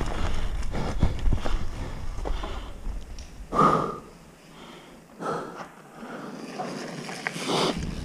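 Mountain bike ridden over a dirt forest track, heard from a rider-mounted action camera: tyres crunching on dirt and gravel, the frame rattling over bumps, and wind rumble on the microphone. The rumble and knocks ease off around the middle, and the rider's breath puffs a few times.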